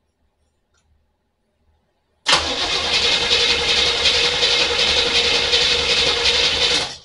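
Starter motor cranking the 1975 Corvette's 350 small-block V8 with the distributor disconnected, so the engine turns over without firing, to build oil pressure after the oil pump had been off. The cranking starts suddenly about two seconds in, runs steadily for nearly five seconds, then stops.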